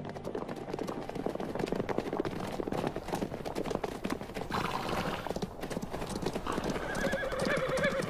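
A herd of Namib desert horses, feral horses, trotting and galloping over stony ground: a dense, irregular patter of many hoofbeats. In the second half, horses whinny several times.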